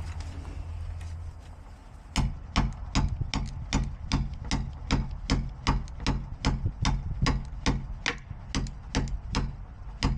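A bump key being tapped over and over in a pin-tumbler lock, sharp metallic knocks about two or three a second from about two seconds in, bumping the pins to open the lock. A low steady hum runs for the first second or so.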